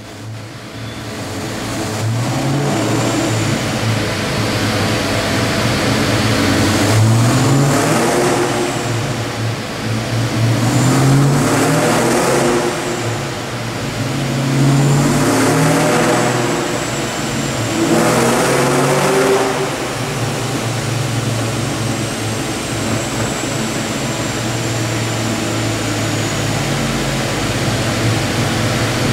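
Supercharged 5.0-litre V8 of a 1993 Mustang Cobra with a Vortech S-trim blower, running on a chassis dyno. The engine climbs in revs and drops back four times in the first twenty seconds, then holds a steady speed.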